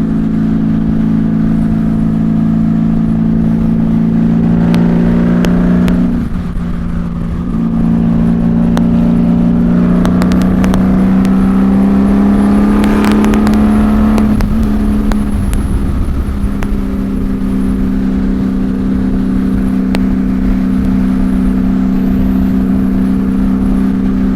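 Honda Valkyrie's flat-six engine through six-into-six Cobra pipes, heard from inside the rider's helmet under wind rumble while riding at highway speed. The engine eases off about six seconds in, then rises in pitch as it accelerates and drops back about halfway through, settling to a steady cruise.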